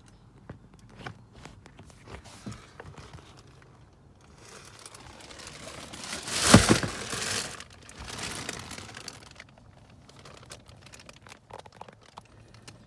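Handling noise: scattered light clicks and knocks, then a stretch of crinkling rustle that swells to a loud peak about six and a half seconds in and dies away a couple of seconds later.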